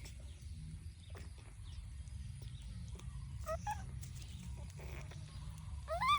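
Baby monkey giving short rising squeals: a quick pair about three and a half seconds in and a longer upward-sliding cry near the end, over a steady low rumble.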